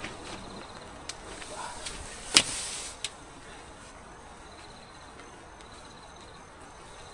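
A few sharp snaps over a faint steady hiss, the loudest about two and a half seconds in, with smaller ones about a second in and just after three seconds.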